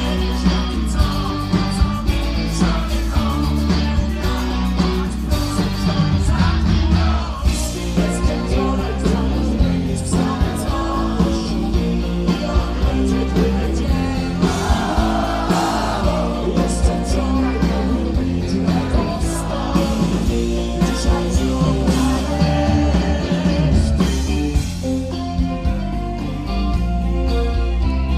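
Live rock band playing over a concert PA: electric guitars, bass and drums with a steady beat, and a male voice singing, heard from the crowd.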